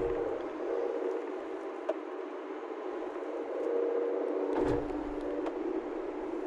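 A car being driven, with a humming whine that comes and goes and two low thumps, one at the start and one about four and a half seconds later: the noise it makes when turning and accelerating.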